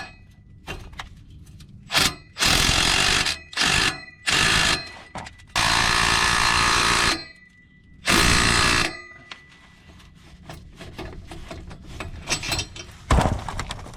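Power tool running in about six short bursts of rapid hammering, each under two seconds, with metal clicks between them, as the nuts of a new exhaust clamp are driven down.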